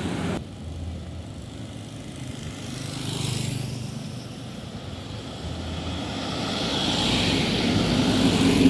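Road traffic: vehicles passing with engine and tyre noise, one swelling briefly about three seconds in, then another coming closer and growing louder until the sound cuts off abruptly at the end.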